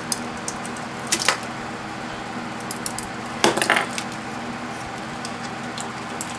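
Sheet-metal (tin) parts stripped from a microwave oven clinking and clattering as they are handled and set down: a few sharp clinks, the loudest clatter about three and a half seconds in, over a steady low hum.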